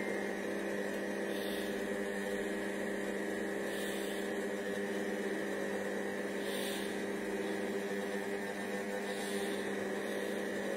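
Cecotec Mambo 8590 kitchen robot running a cooking cycle: a steady motor hum made of a few fixed tones, with a soft hiss that swells about every two and a half seconds.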